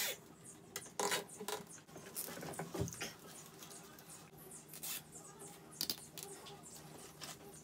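Plastic cable ties being handled and pulled tight around rubber fuel hoses: scattered small clicks and scratchy rustling from hands on the hoses and ties.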